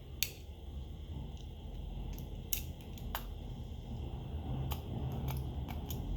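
Sharp small clicks and taps of hand tools on phone parts, about nine scattered ticks, over a low rumble that grows louder near the end.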